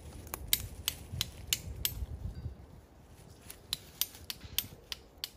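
Sharp taps and small cracks as a hatchet blade is worked into the end of a fresh-cut green stick to split it. There is a quick run of clicks, a short pause, then another run.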